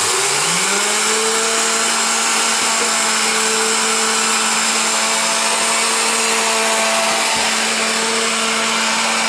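Electric meat grinder switching on and grinding peeled tomatoes. Its motor hum rises to speed in under a second, then runs loud and steady at one pitch.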